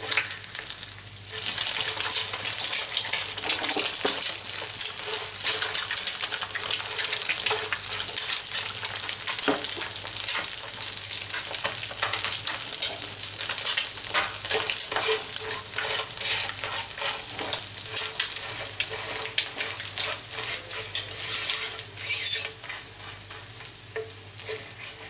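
Flipped egg frying in hot oil in a pan, sizzling and spitting with many small crackling pops. The sizzle grows louder about a second in, surges briefly about 22 seconds in, then dies down near the end.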